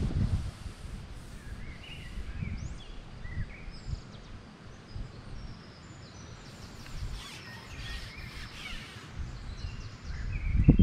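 Small birds chirping and singing in short scattered calls, over a low rumble that grows louder near the end.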